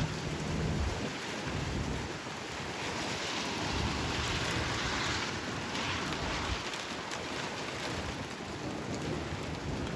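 Heavy rain and gusting wind of a severe thunderstorm: a dense wash of rain noise with irregular low rumbling, swelling louder about three seconds in and easing after about six seconds.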